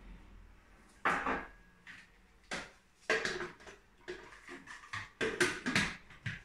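Hard plastic knocks and clatter as a countertop blender jug and its lid are handled and fitted: a string of sharp, irregular knocks, the loudest about a second in and just past five seconds in.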